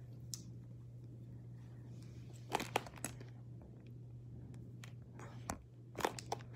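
Handling noise on a phone's microphone: a few short clicks and rustles, in two clusters around the middle and near the end, over a steady low hum.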